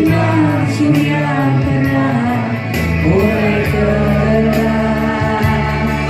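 Music with a singing voice over bass and regular drum beats.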